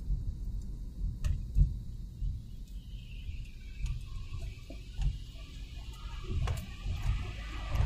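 Low, steady rumble of a car driving in city traffic, heard from inside the cabin, with a few light clicks.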